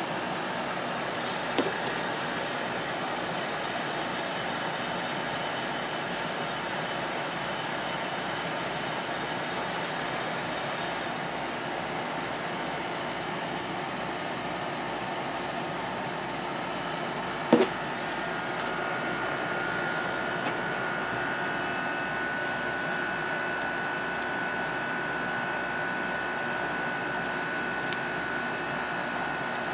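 General Electric 6050 BTU window air conditioner running on cool with its Qingan compressor and fan going, a steady hum and rush of air, just after the compressor has kicked in. Two brief knocks, at about 1.5 s and 17.5 s, and a steady thin whine comes in a little past halfway.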